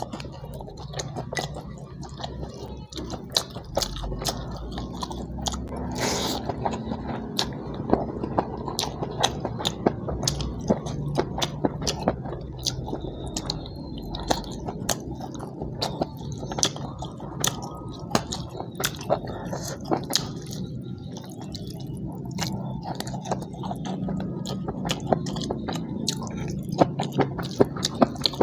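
A man chewing and biting fried fish and rice eaten by hand, with frequent short smacking clicks of mouth and lips.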